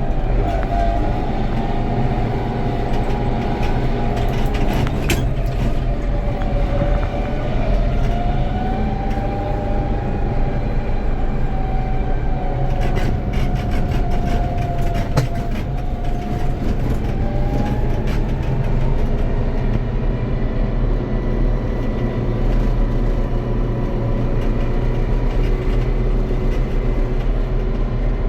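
Tractor engine running steadily under load, with a whine that wavers in pitch and a few scattered clicks and knocks.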